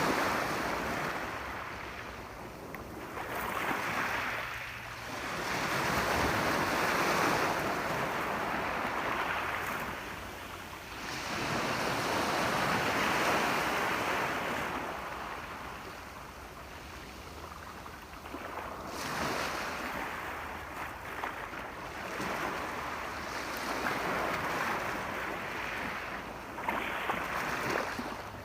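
Ocean waves washing onto the shore, the surf swelling and ebbing in slow surges every few seconds.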